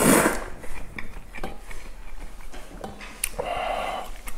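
A loud slurp of slushy, ice-cold naengmyeon broth drunk from a bowl at the start, followed by light clicks and taps of chopsticks and dishes. A softer drawn-out sound comes about three seconds in.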